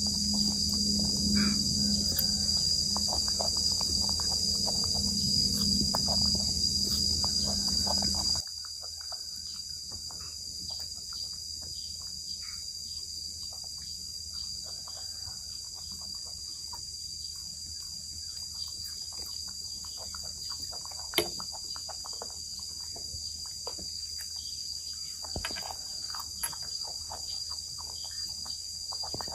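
Steady high-pitched insect chorus, one unbroken buzzing tone, over a lower background noise that drops away about eight seconds in. Faint scattered clicks, one sharper click about two thirds of the way through.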